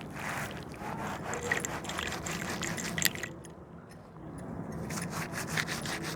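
A gritty slab crumbling in water, with gritty scraping and many small crackles; it eases off for about a second just past the middle, then picks up again.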